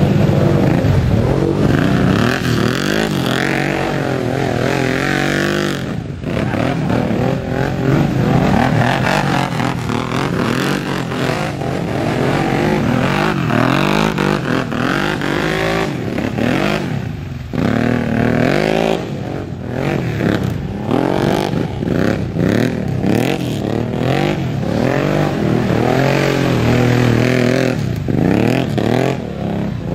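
ATV (quad bike) engines revving hard through deep mud, the pitch rising and falling again and again as the throttle is worked.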